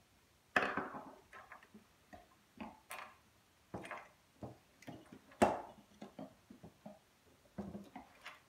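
Hargrave wooden handscrew clamp being handled on a wooden workbench: irregular knocks and clunks of its wooden jaws and handles against the bench. The loudest knocks come about half a second in and again past the middle.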